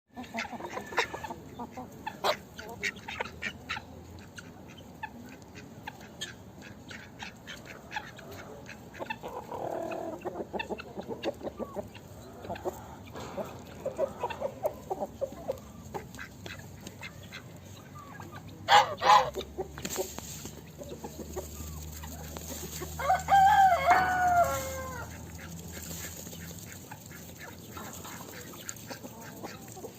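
Chickens clucking, with many short sharp calls, two loud squawks, and then a rooster crowing once, a loud call of about a second and a half that drops in pitch at its end.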